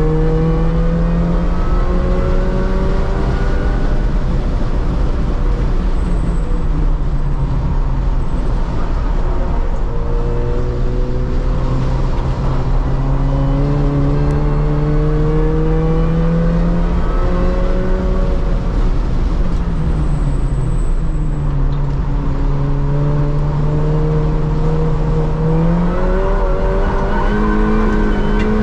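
R53 Mini Cooper S's supercharged four-cylinder engine heard from inside the cabin under hard acceleration on track, its pitch climbing slowly through each long pull and falling back at a few upshifts, then jumping up near the end on a downshift, over steady road and wind noise.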